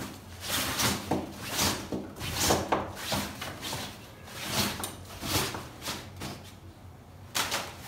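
Dry cloth wiping over the fabric seat of a Mastella swing bassinet: a run of short swishing strokes, a little under one a second, with a pause before a last stroke near the end.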